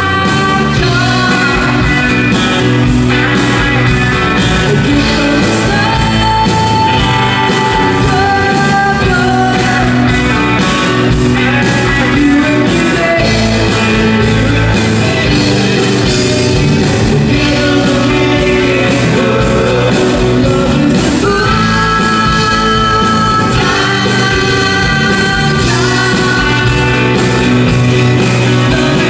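A woman singing a country-rock song with long held notes, backed by a band with electric guitar and drums keeping a steady beat.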